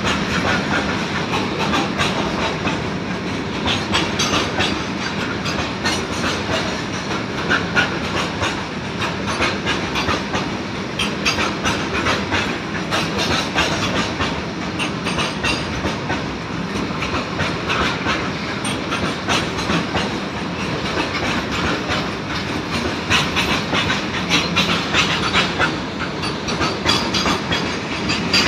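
A freight train of covered goods wagons rolling past, its steel wheels clattering steadily over the rail joints in a continuous clickety-clack over a rumble.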